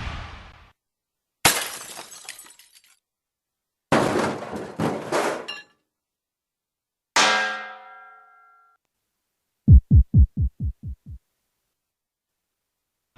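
A string of separate sound effects with silence between them: a sharp crash about a second and a half in, a clattering breaking sound with several hits about four seconds in, a metallic clang with ringing tones about seven seconds in, and near the end a quick run of about eight low pulses, each falling in pitch and growing fainter.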